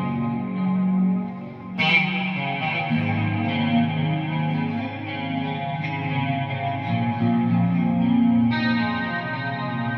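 Electric guitar with a single EMG 81 active pickup, played through a Line 6 HD500X processor into a Laney Ironheart cabinet on a clean tone. It plays sustained chords and picked passages, with strong new attacks about two seconds in and again near the end.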